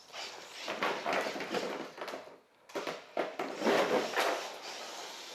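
Axial SCX10.2 RC crawler driving in surges, its tyres and chassis scraping and crunching over the ground. The noise stops briefly about two and a half seconds in, then picks up again.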